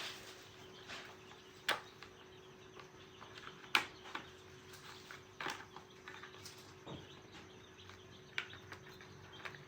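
Scattered sharp clicks and light knocks, about five spread over several seconds, the loudest about four seconds in, over a faint steady hum.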